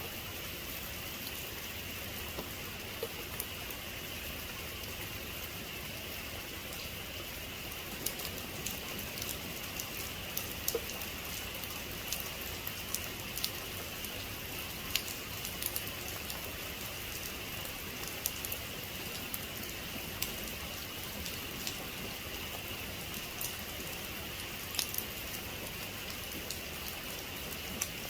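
Steady rain falling, with the sharp ticks of individual drops striking a surface scattered through it, coming more often after about eight seconds. No thunder.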